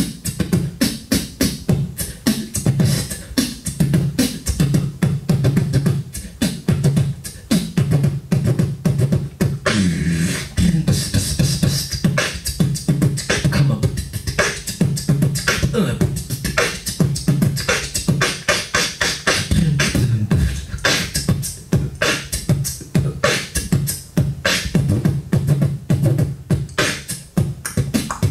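Solo beatboxing into a handheld microphone: rapid vocal kick, snare and hi-hat strokes over a low pulsing bass tone, with a stretch of gliding pitched sounds about ten seconds in.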